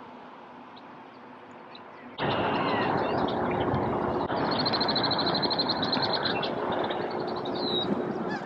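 A bird trilling: a rapid run of high notes, with a short falling note near the end, over a loud, steady rushing noise that starts suddenly about two seconds in.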